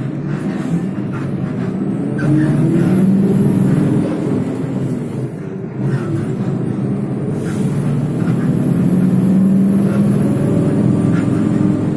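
Bus engine running heard from inside the passenger cabin, with a low steady drone and road noise. It grows louder over the first couple of seconds, drops briefly about halfway, then builds again.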